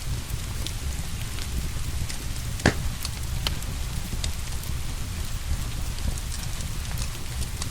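Wood fire crackling, with scattered sharp pops and one louder pop about a third of the way in, over a steady hiss of rain.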